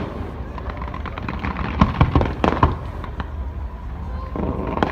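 Fireworks display going off: a quick cluster of sharp bangs about two seconds in, over steady crackling from the bursting shells.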